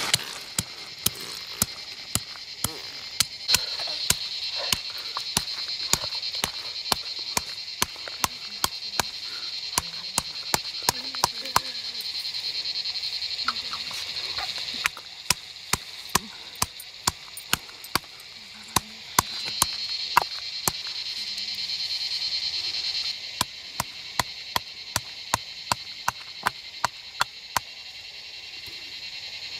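Large knife chopping a bamboo shoot on a flat stone slab, sharp chops about twice a second with a short pause partway through. Behind it a steady high-pitched animal chorus cuts out and comes back a few times.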